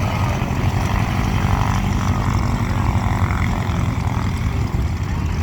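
Vintage biplane radial engines and propellers running on the ground, a fast, low, even pulsing of the cylinders firing.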